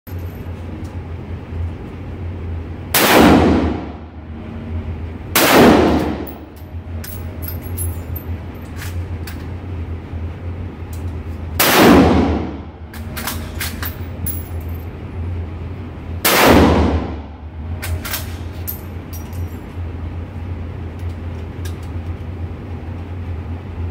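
Four loud rifle shots from a Spanish Mauser bolt-action rifle, each followed by a long echo in an indoor range. The shots come a few seconds apart, the first two closest together. Between them are small metallic clicks over a steady low hum.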